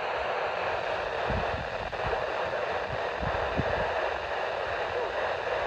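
Steady hiss of static from a weather radio receiver, even in level throughout, with a few faint low thuds underneath.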